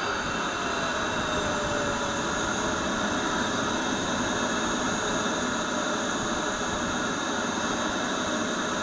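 Radio-controlled model jet's turbine engine running steadily with a high whine and a strong hiss, the whine sliding slightly lower in the first couple of seconds and then holding steady.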